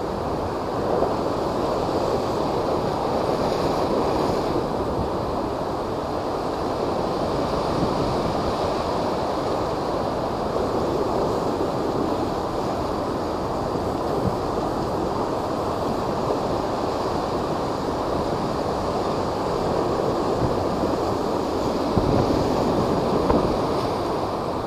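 Heavy surf from typhoon-driven high waves, a continuous rushing wash of water with wind buffeting the microphone. A couple of slightly louder surges come near the end.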